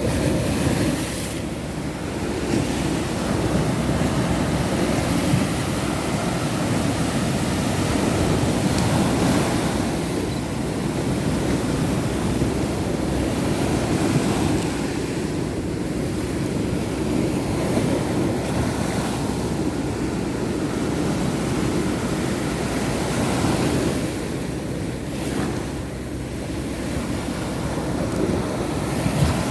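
Sea waves washing onto a sandy beach, a continuous surf that swells and eases every few seconds, with sea wind blowing across the microphone.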